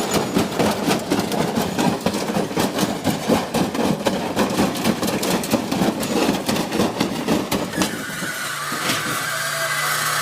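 Washing machine banging and rattling violently with rapid, repeated knocks as it shakes itself apart. About eight seconds in the knocking stops, leaving a steady motor hum.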